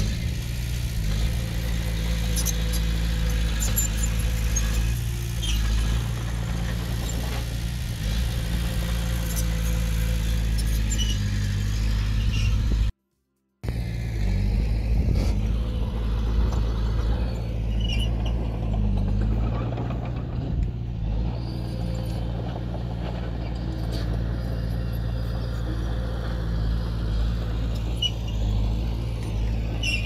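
Heavy diesel engine of earthmoving machinery running steadily with a deep, even drone and scattered light clicks and clanks. The sound cuts out completely for about half a second just after the middle.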